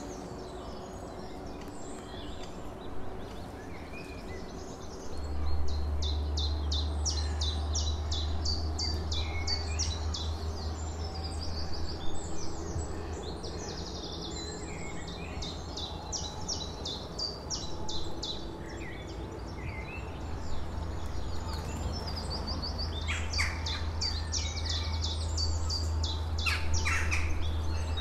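Several songbirds singing outdoors in spring, with quick repeated high notes and trills overlapping throughout. A steady low rumble comes in about five seconds in and stays.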